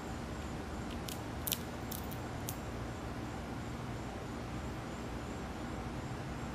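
Gray squirrel gnawing on food held in its paws: about five sharp clicks of its teeth on the food between one and three seconds in, over a steady low rumble.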